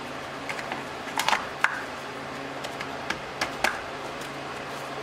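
A scatter of short plastic clicks and taps as a red plastic positive-terminal cover is handled and snapped onto a car battery's positive terminal, the loudest a little over a second in and again around three and a half seconds. A steady low hum underneath.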